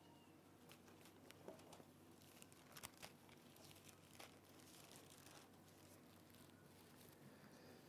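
Near silence with faint paper rustling and a few light clicks, the sharpest about three seconds in: Bible pages being turned to find a passage.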